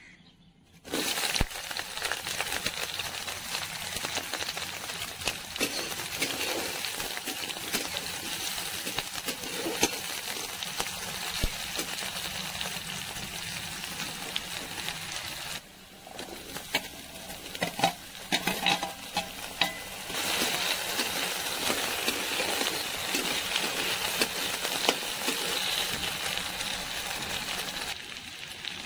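Sliced onions and chillies sizzling in hot oil in an aluminium kadai, the sizzle starting suddenly about a second in and then running steadily. About halfway through the sizzle drops for a moment and a few sharp knocks, like a spatula against the pan, are heard before it comes back louder.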